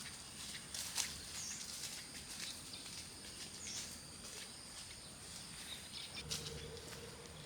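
Quiet rural outdoor ambience: a steady high-pitched drone, two short bird chirps and scattered light rustling clicks, with a low steady hum starting near the end.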